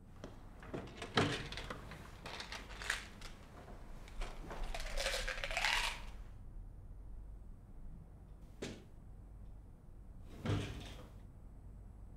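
Wooden dresser drawer opened and its contents rummaged through: a run of small knocks, clicks and a scrape over the first six seconds, then two single knocks later on.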